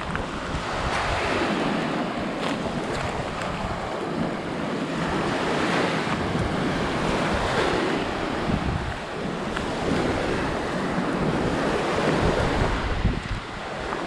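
Small surf breaking and washing up a sand-and-shell beach, swelling and ebbing every few seconds, with wind buffeting the microphone in a low rumble.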